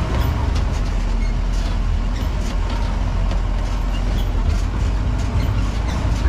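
Off-road jeep driving over a rough track: a steady engine and road rumble with frequent small rattles and knocks from the vehicle.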